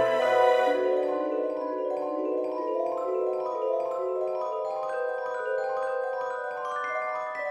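Instrumental background music, a melody played on mallet percussion with notes moving in steps.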